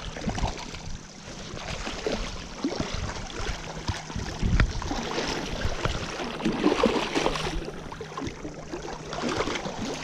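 River current flowing around a wading angler, with irregular splashing and sloshing while a hooked lake-run brown trout is played in close.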